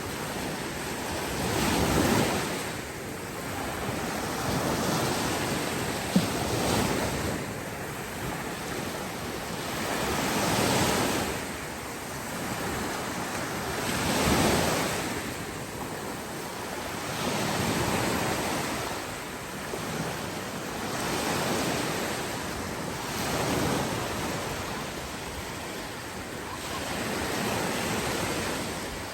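Sea waves breaking and washing up on a beach, the surf swelling every three to four seconds over a steady rush. There is a single brief click about six seconds in.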